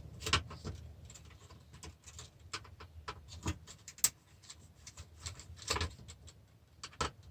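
Irregular small clicks and clinks of metal parts and a tool being handled while unscrewing and taking apart a steel-cased DVD player.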